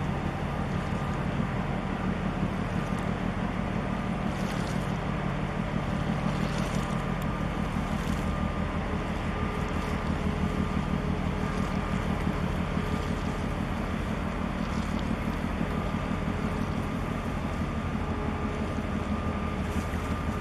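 Steady low engine drone of a small boat under way, with a faint whine that comes and goes and wind on the microphone.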